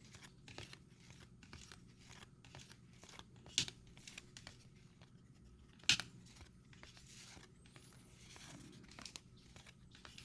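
Trading cards being handled and flipped through: faint rustling and small ticks, with two sharper clicks, one about three and a half seconds in and one about six seconds in.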